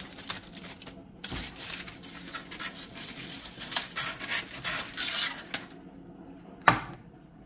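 Aluminium foil rustling and crinkling, with metal clinks, as a heavy steel pipe wrench is handled in it on a wooden cutting board. Near the end there is one sharp knock as the wrench is set down on the board.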